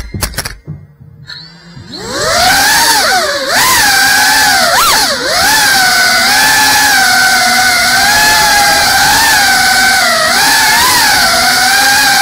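GEPRC Cinelog 35 cinewhoop drone's brushless motors and ducted propellers. A brief clatter comes right at the start, then a short lull, and about two seconds in the motor whine rises and holds, its pitch wavering up and down with the throttle.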